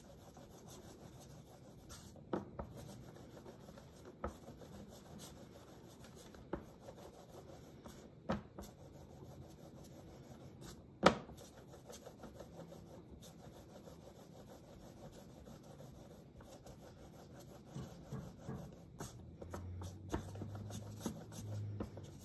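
Hands rolling a soft clay coil back and forth on a board: a faint, steady rubbing, with a few light knocks, the sharpest about halfway through.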